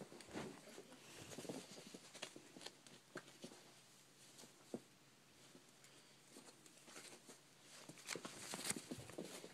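Small dogs scuffling on bedding close to the phone: faint rustling with scattered soft clicks and taps, busier about eight seconds in.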